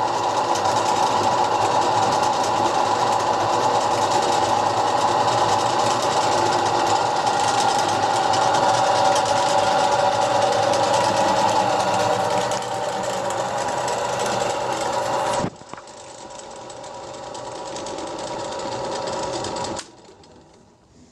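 STD-120M benchtop lathe, freshly overhauled, running under its electric motor: a steady mechanical whir with a constant hum in it. About fifteen seconds in the sound drops suddenly to a quieter run, and a few seconds before the end it stops.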